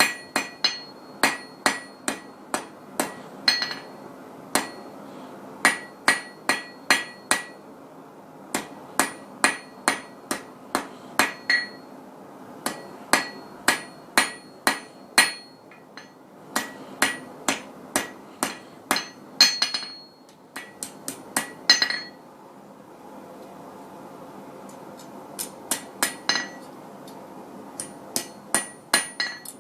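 Hand hammer striking hot steel on an anvil in runs of quick blows, about three a second, each with a short metallic ring, while the stem of a forged leaf is drawn out. The blows stop for a few seconds about two-thirds of the way through, then start again.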